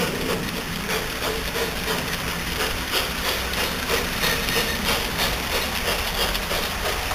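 LGB garden-scale model trains running on outdoor track, with a quick irregular clicking and rattling of wheels on rail over a steady running noise.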